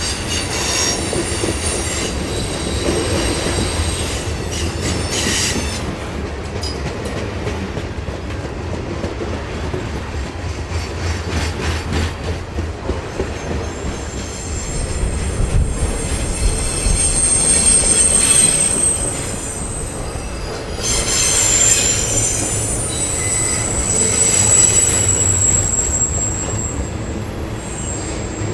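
Freight cars rolling past close by: a steady rumble of steel wheels on the rail, with a high-pitched wheel squeal that comes and goes, strongest past the middle and again near the end.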